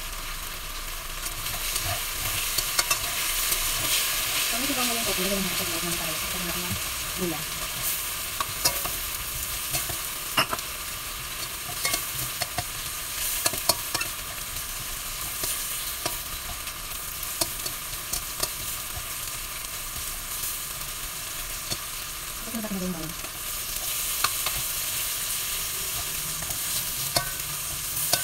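Tofu cubes frying in oil in a stainless steel wok, sizzling steadily, with repeated clicks and scrapes of a metal spatula stirring against the pan.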